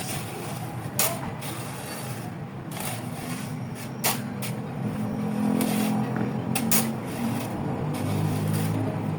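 Engine-workshop noise: a few sharp knocks over a steady low mechanical hum that grows somewhat louder in the second half.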